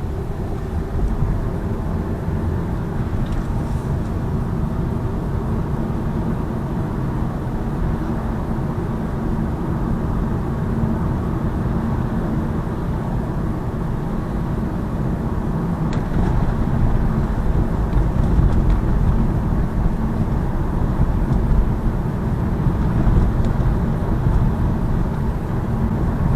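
Road noise inside a Lada Vesta Cross driving over a rough road: a steady low rumble from the tyres and suspension, a little louder about two-thirds of the way through. There is no rattle from the multimedia frame, which has been padded with soft double-sided tape.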